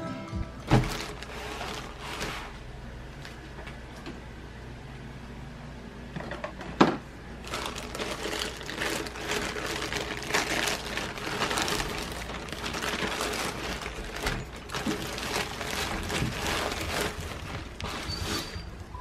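Black plastic mailer bag crinkling and rustling as a parcel is handled, in dense crackling runs from about seven seconds in. Two thumps come before it, the louder one about seven seconds in.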